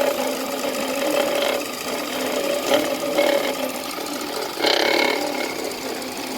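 Car alternator (dynamo) with the engine running, making a rough, rattling grinding noise that swells louder for about half a second around five seconds in: the noise of a faulty alternator.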